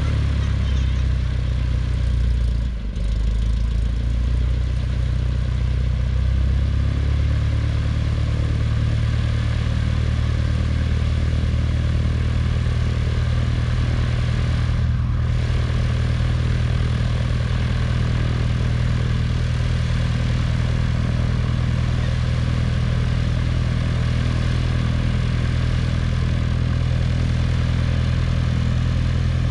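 Cessna 182's six-cylinder piston engine and propeller running at low power on the ground, a steady low drone that shifts slightly in pitch a few seconds in.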